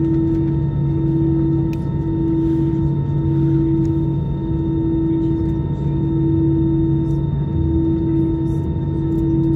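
Airbus A320 cabin noise while taxiing: a steady engine drone over a low rumble, its tone dipping briefly every second or so.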